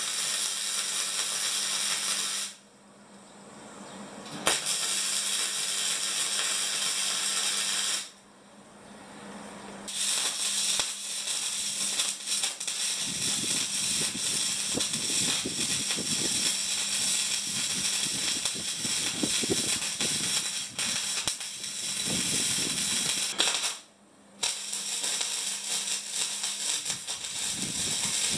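Electric arc welding on steel tubing: a steady, loud crackling hiss in runs of several seconds. The arc breaks off twice for about two seconds and once briefly near the end, as the weld bead is stopped and restarted.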